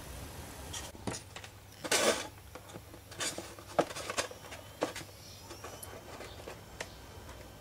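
Small objects being handled on a workbench: a brief rustle about two seconds in, then a string of light clicks and taps.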